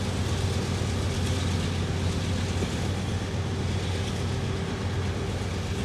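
Long CSX freight train of covered hopper cars rolling slowly past below: a steady, even rolling noise of wheels on rails with a low hum.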